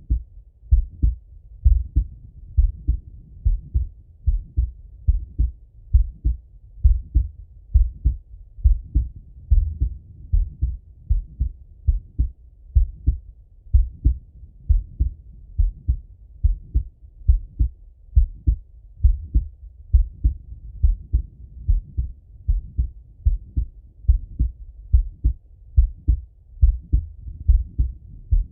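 A man's heartbeat heard through a Littmann stethoscope: a steady, even lub-dub, each beat a pair of dull thumps, at about one beat a second.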